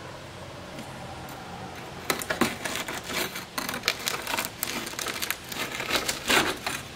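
HO-scale PECO Code 83 turnout being pried up off its glued, alcohol-soaked ballast: a fast, irregular run of small crackles and clicks as ballast grains and glue break loose, starting about two seconds in.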